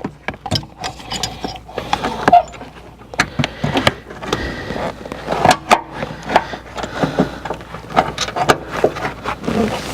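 Irregular clicks, knocks and scraping of a seatbelt retractor assembly being worked into its mounting in the car's pillar trim, plastic and metal parts knocking as it is pushed into place.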